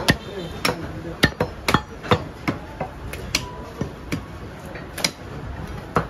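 Heavy butcher's cleaver chopping through beef onto a wooden chopping block: a run of sharp, irregularly spaced chops, about two to three a second.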